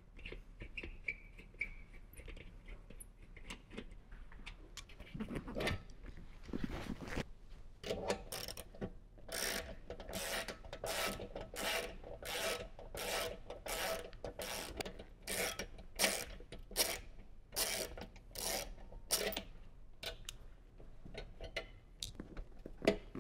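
Motorcycle seat being unfastened with a screwdriver and handled off its mount: a few scattered knocks, then a long run of short, regular strokes, about two a second, through the middle stretch.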